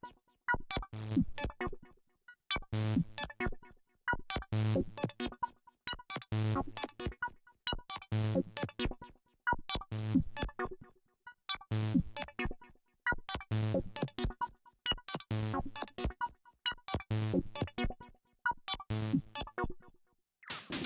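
Electronic synthesizer sequence looping: a short phrase of sharp, clicky synth notes over a low bass note, repeating about every second and three-quarters with brief gaps between repeats. Near the end a new sustained synth sound with a high steady whine comes in.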